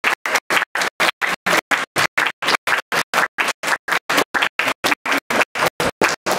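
Audience applauding, the sound chopped into regular short bursts about four a second with dead silence between them.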